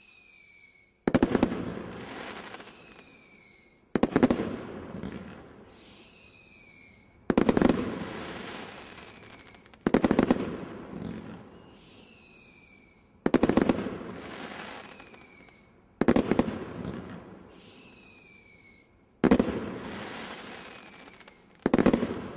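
Brothers 'The God Father 2' display-kit fireworks firing single whistling shots about every three seconds. Each shot gives a falling whistle and then a loud bang, eight bangs in all.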